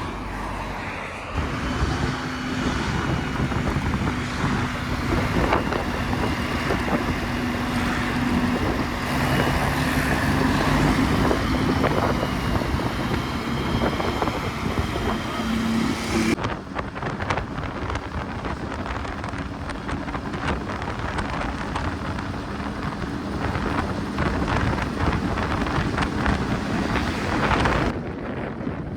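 Car driving along a road: a steady engine hum with road noise and wind on the microphone. The engine tone drops away abruptly about halfway through, leaving the road and wind noise.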